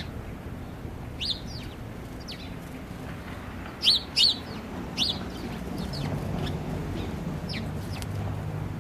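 House sparrows chirping: short, downward-sliding chirps every second or so, the loudest a quick pair about four seconds in. A low steady hum comes in underneath about six seconds in.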